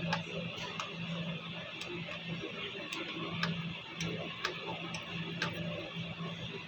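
HP LaserJet M202dw laser printer running: a steady, pulsing hum with sharp ticks about once a second.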